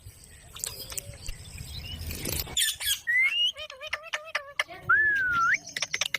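Ringneck parakeet calling and whistling. About three seconds in comes a rising whistle, then a run of warbling notes, then near five seconds a whistle that dips and rises again, with sharp clicks scattered between.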